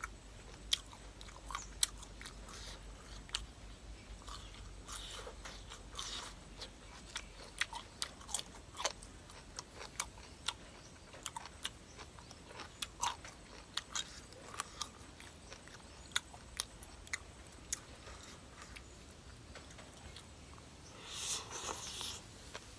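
Close-up eating sounds: a person chewing and biting, with sharp wet mouth clicks and crunches coming irregularly, about one or two a second. Near the end a louder noisy stretch of about a second.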